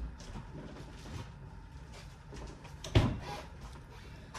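Refrigerator door shutting with a single solid thump about three seconds in, among faint low rustling.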